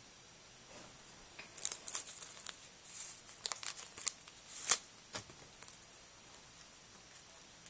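Trading-card packaging being torn open and crinkled by hand: a run of sharp crackles and short rustling tears for a few seconds, loudest near the end of the run, then quiet handling.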